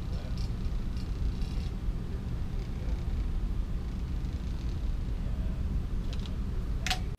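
Steady low room rumble, with a few faint small clicks and a sharper tick near the end.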